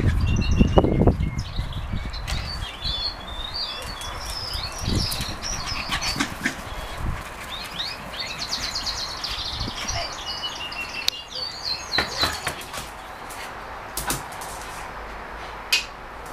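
Small birds singing and chirping, with trills and warbles. Scattered sharp knocks and clicks come through, and a loud low rumble fills the first second or so.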